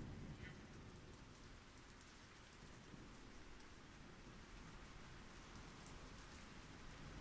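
Faint steady rain: a soft hiss with scattered light ticks of drops.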